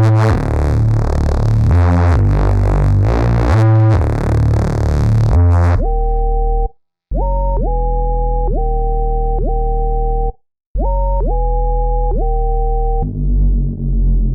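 Xfer Serum 2 synthesizer presets demoed in UK garage style. First comes a dense, bright, buzzy bass line. From about six seconds in, a cleaner patch plays held notes, each sliding up in pitch into the note. Near the end a third, pulsing bass patch comes in.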